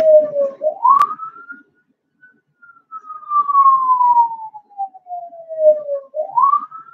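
Emergency-vehicle siren in a slow wail, played back from a video: the pitch climbs quickly, falls slowly for about four seconds, then starts to climb again near the end. A single sharp click about a second in.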